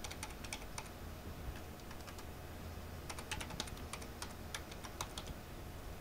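Faint computer keyboard typing: irregular key clicks as a short line of text is typed, over a steady low hum.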